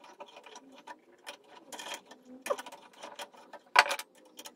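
Pliers and metal parts clicking and scraping against a rusty bayonet held in a steel bench vise: a string of small irregular clicks, with one louder metallic clack near the end.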